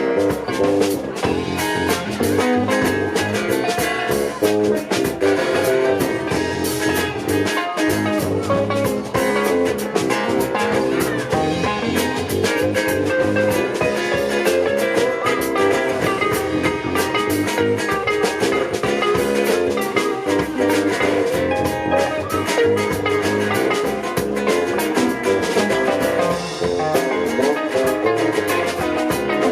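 Live band playing an instrumental passage: guitar over a drum kit keeping a steady beat.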